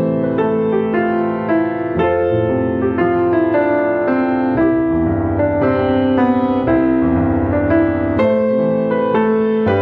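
Slow, gentle piano music, a steady flow of single notes over sustained low bass notes.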